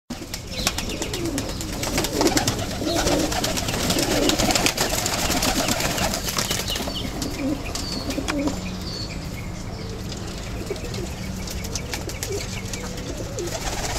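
Flock of Iraqi and Iranian high-flyer pigeons in their loft: wings flapping and clattering, busiest in the first half, under low, warbling cooing.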